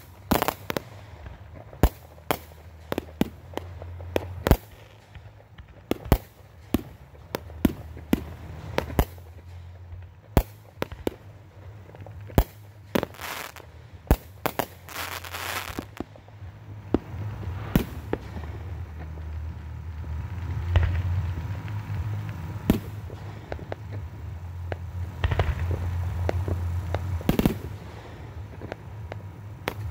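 Aerial firework shells bursting in quick succession, many sharp bangs roughly every second, with a stretch of crackling about halfway through. A low rumble beneath swells in the second half.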